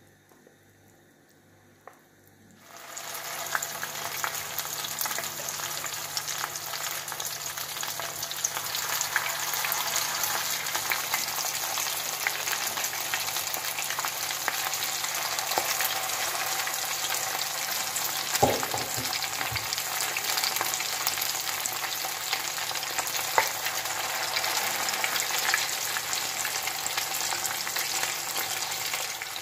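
Buckwheat-and-mince patties frying in hot oil in a nonstick pan: a steady sizzle that starts about three seconds in, with a few short knocks, the loudest midway.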